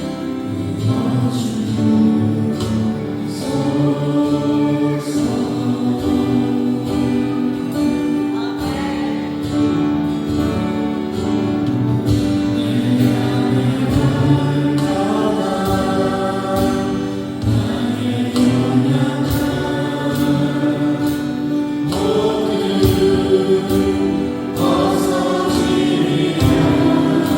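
Choir singing with instrumental accompaniment, a steady beat running under held sung notes.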